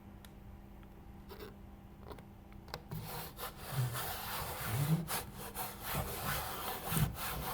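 Rough, irregular rubbing and scraping of an adhesive-backed foam deck mat and its backing being handled and pressed into place, starting about three seconds in, with a few soft thuds.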